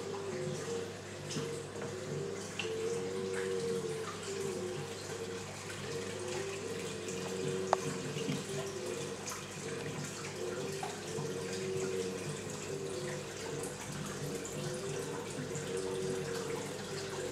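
Water steadily running and trickling as it circulates through a large reef aquarium, over a low steady hum and a slowly wavering tone. One sharp click about eight seconds in.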